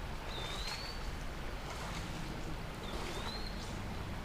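A bird's short rising whistle, heard twice about two and a half seconds apart, over the steady low rush of a shallow creek.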